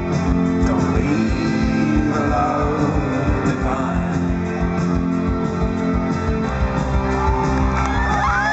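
Live folk-rock band playing at full volume: strummed guitars and sustained chords over a steady drum beat.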